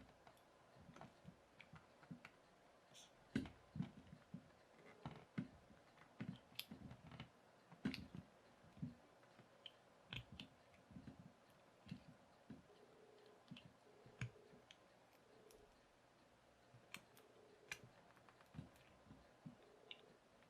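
Faint, irregular clicks and knocks of small plastic parts being handled and prised at, as a cheap plastic dial combination lock is worked apart.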